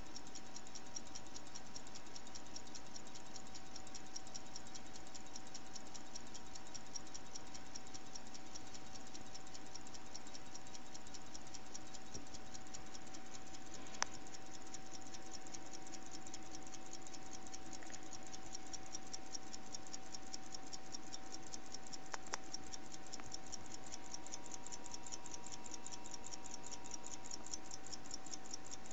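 Running Waltham pocket watches ticking: the rapid, even beat of their balance-wheel escapements. A faint steady hum lies underneath, and there is a single sharp click about halfway through.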